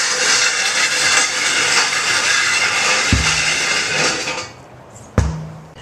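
Steel prowler sled's skids scraping and grinding along asphalt as it is pushed, a loud, even rasp that fades out about four and a half seconds in. A dull thump about three seconds in and a louder one about five seconds in.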